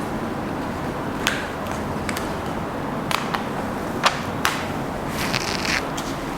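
Steady background noise with a handful of short, sharp clicks and taps scattered through the middle.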